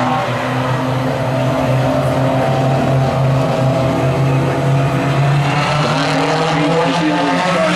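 A pack of mini stock race cars at speed, their four-cylinder engines blending into one steady, loud drone that rises slightly in pitch as they go through the laps.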